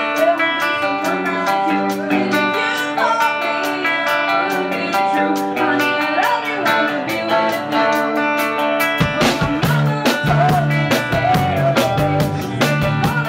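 Live rock band playing: electric guitar and drums, with a woman singing into a microphone. About nine seconds in, a deep low end comes in and the sound fills out.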